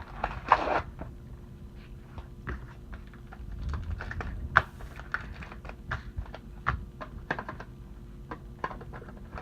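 Trading card packaging being handled and opened by hand: a string of small, irregular clicks and crinkles.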